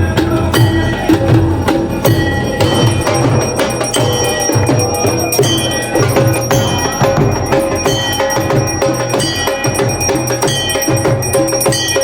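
Hindu temple aarti: bells struck over and over and left ringing, over a steady drum beat.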